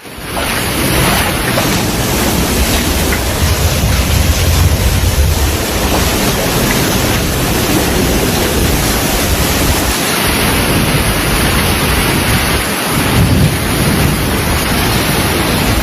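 Loud, steady noise of a heavy rainstorm, with wind buffeting the microphone in irregular low rumbles.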